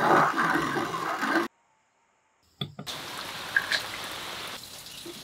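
Coffee beans being ground in a cast-iron hand-cranked grinder, a dense grinding noise that cuts off suddenly. After a click, liquid is ladled into a brass coffee filter with a steady trickle.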